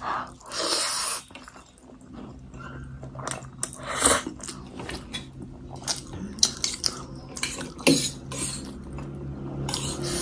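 Fork and spoon clicking and scraping on a stainless steel plate of noodles, with slurping and chewing of the noodles at the start.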